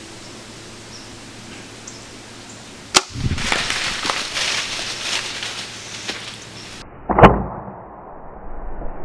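Bow shot: a sharp crack of the bowstring and arrow about three seconds in, followed by a few seconds of rustling as the whitetail doe bolts through dry leaves. A second loud, sharp crack comes about seven seconds in.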